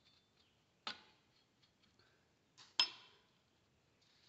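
Two sharp metal clinks with a short ring, about two seconds apart, as a hand tool knocks against the parts of a car's rear drum brake assembly.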